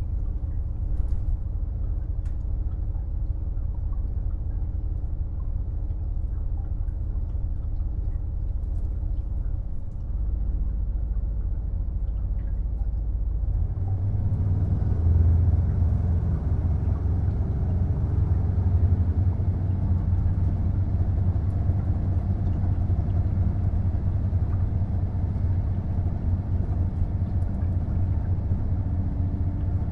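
KiHa 48 diesel railcar's engine heard from on board: a steady low idle, then about 14 seconds in it throttles up and the rumble grows louder and fuller, as when the railcar pulls away under power.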